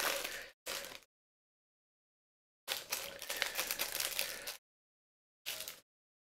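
Small plastic Lego pieces clicking and clattering together as they are handled and gathered up, in a few short spells of rapid clicks with dead silence between.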